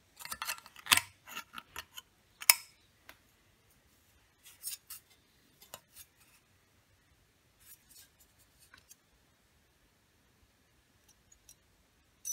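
Thin aluminium sheet cut into strips, crackling and clicking as it is flexed and handled. A dense run of sharp clicks comes in the first few seconds, then sparser, quieter ones.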